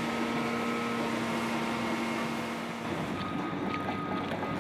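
An engine of heavy machinery running steadily with a low, even hum. The hum stops about three seconds in, leaving a quieter wash of outdoor background noise.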